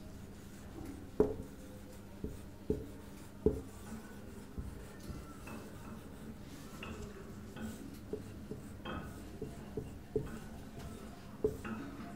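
Marker pen writing on a whiteboard: a string of sharp taps and short scratches as letters are drawn and underlined, with the loudest taps in the first few seconds, over a faint steady hum.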